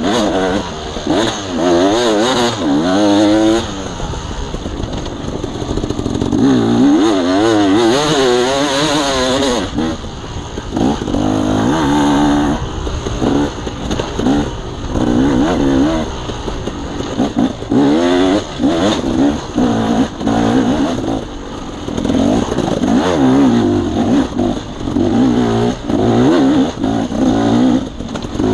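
Dirt bike engine under hard, changing throttle on an off-road trail, its revs rising and falling quickly and over and over, with knocks and clatter mixed in.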